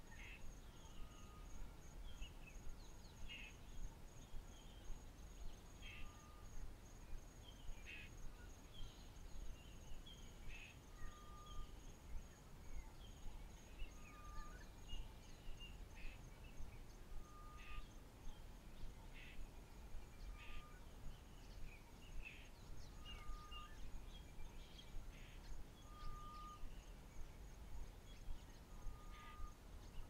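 African bushveld ambience: a steady high-pitched insect trill with many bird chirps and calls over it, among them a short plain note repeated every second or two, over a low background rumble.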